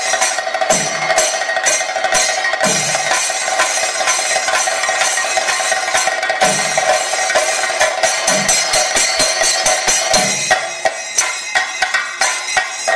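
Thayambaka drumming: chenda drums struck in fast, dense rolls with curved sticks, over the steady ring of ilathalam hand cymbals, with a deep bass stroke every couple of seconds. After about ten seconds the rolls open into separate, evenly spaced accented beats.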